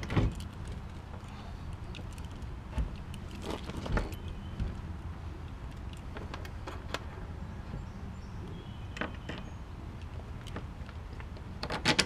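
Scattered metallic clicks and knocks as a Land Rover Series rear door is handled and fitted onto its hinges at the back of the body, with a cluster of sharper clicks near the end.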